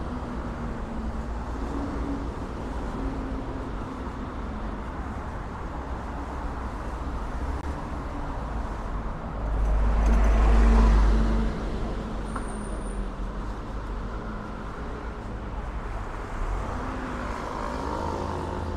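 City street traffic: cars and other vehicles running steadily, with one vehicle passing close and loud about ten seconds in. A brief high squeak follows just after.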